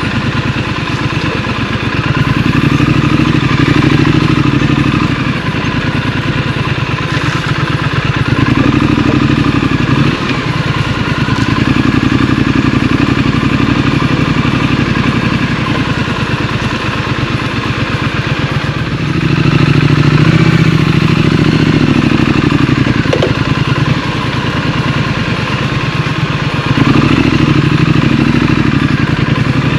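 Scrambler motorcycle engine running under way, its pitch and loudness rising and easing off with the throttle in about five surges.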